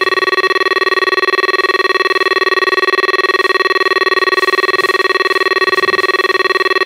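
Fox RX+ electronic carp bite alarm sounding a continuous tone that pulses rapidly, its LED lit: a run, with a fish taking line off the reel.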